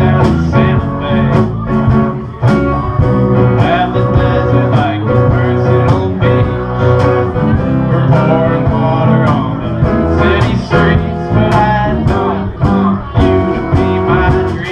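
A country-style song played on guitar, with plucked strings in a steady rhythm.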